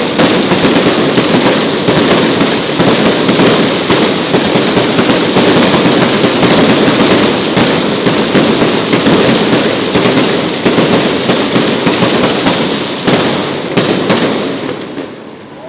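Fireworks going off in a rapid, dense, continuous crackle of many small bangs, which thins out and dies away near the end.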